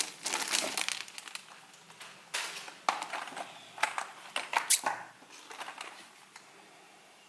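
Packaging crinkling and rustling as it is handled, in crackly bursts with sharp clicks through the first five seconds or so, then dying away.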